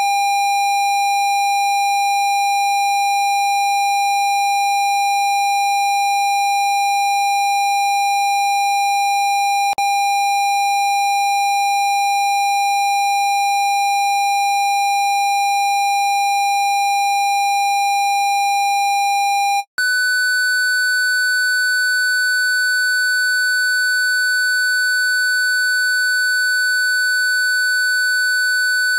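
Steady electronic sine-wave tone at 802 Hz, with a faint click about ten seconds in. About two-thirds of the way through it cuts out for an instant and gives way to a higher steady sine tone at 1500 Hz.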